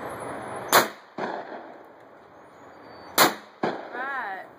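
Two shotgun shots from an over-under shotgun, about two and a half seconds apart, one at each clay target of a pair, both of which are hit. Each shot is followed about half a second later by a softer second crack that dies away.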